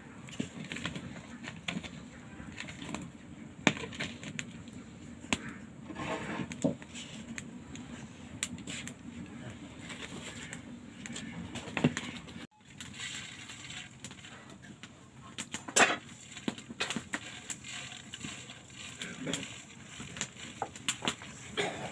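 Hands rubbing and crumbling damp rice flour in a bowl, then working it through a plastic sieve: a soft rustling with scattered sharp clicks and knocks of fingers against the container.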